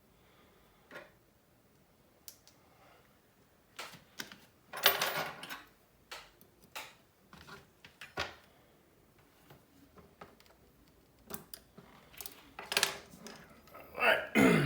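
Small hand tools and parts clicking, tapping and scraping against a smartphone's plastic and metal frame during disassembly, in irregular single clicks and a few short scrapes. A short sigh near the end.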